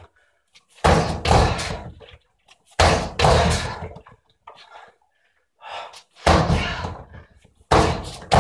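Roundhouse kicks landing on the ribs of a freestanding torso punching dummy: five heavy thuds, each dying away over about a second, with a longer pause between the second and third.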